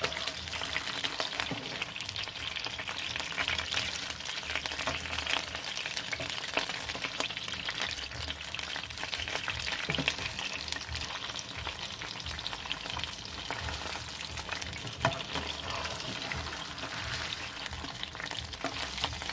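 Red snapper halves frying in hot oil in a nonstick skillet, sizzling and crackling steadily with frequent sharp pops as the fish's juices spatter in the oil. A slotted spatula scrapes and turns the fish in the pan.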